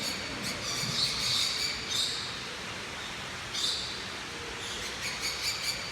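Birds chirping in quick clusters of short, high-pitched calls, with a lull in the middle and a fresh burst of chirps near the end.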